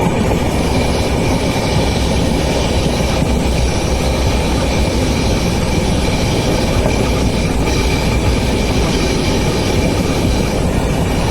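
Indian Railways passenger train running along the track: a loud, steady rumble of wheels and coach, with a thin, high, steady whine over it.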